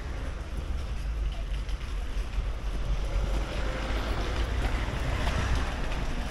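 Wind buffeting the microphone: a fluttering low rumble over a steady rush of outdoor noise.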